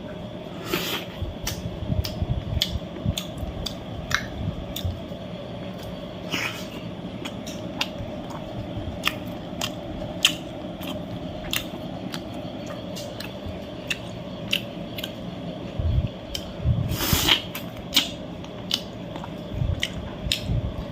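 A person chewing and biting food close to the microphone: frequent sharp mouth clicks and crunches, the loudest about a second in, partway through, and near 17 seconds, over a steady low hum.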